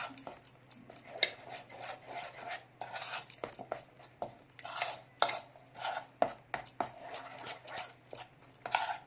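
A utensil stirring a thick besan (gram flour) and water paste in a bowl to work out the lumps, with irregular scraping and clinking against the bowl.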